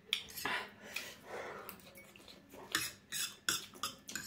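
Metal forks clinking and scraping on a serving tray as noodles are picked up, a string of short sharp clicks with the loudest ones near the end.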